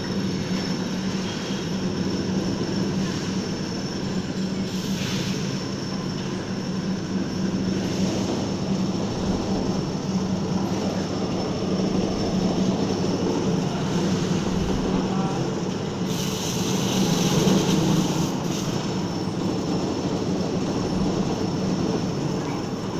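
Steady drone of a scrap-rubber cutting machine running, with a constant low hum and a faint high whine, and a brief rise of hissing noise about two-thirds of the way in.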